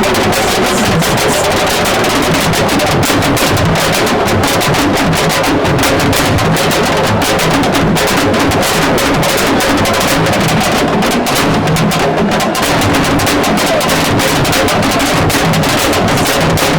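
Music carried by fast, dense drumming.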